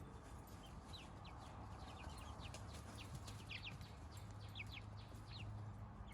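Young chickens peeping: many short, high, falling peeps scattered throughout, faint, over a low steady hum.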